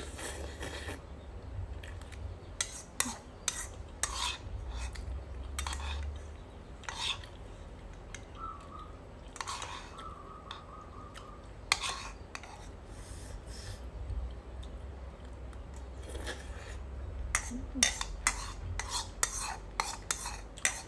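Spoon clinking and scraping against a dish while scooping and stirring food, in short irregular strokes that come thick and fast near the end.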